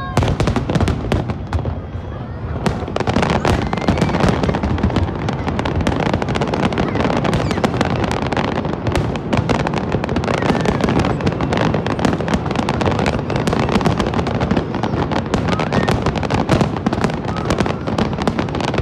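A large aerial fireworks display: a continuous barrage of overlapping shell bursts and crackling that grows denser about three seconds in.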